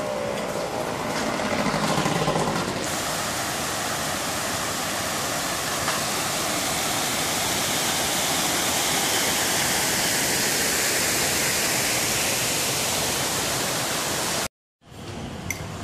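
Heavy rain pouring down, a steady dense hiss. It cuts off abruptly near the end.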